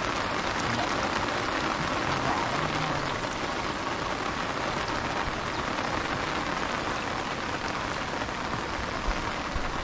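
Heavy rain falling steadily, a dense even hiss of drops that is growing stronger.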